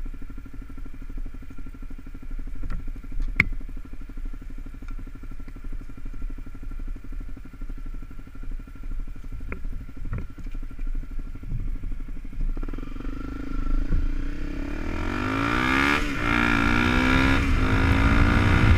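Honda CRF250L's single-cylinder four-stroke engine running at low revs over a rough dirt trail, with a few sharp knocks from the bike. About two-thirds of the way through it accelerates: the revs climb, drop at a gear change and climb again. A rising rush of wind and road noise builds near the end.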